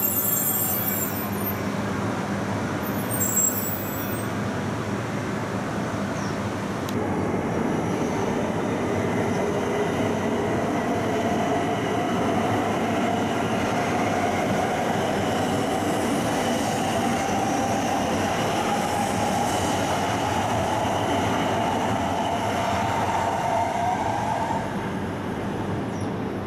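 Shinkansen trains at a station platform. Two brief hisses of air come in the first few seconds. Then an E2-series Shinkansen pulls away with the rumble of its wheels, and the whine of its electric traction motors rises slowly in pitch as it gathers speed, stopping near the end.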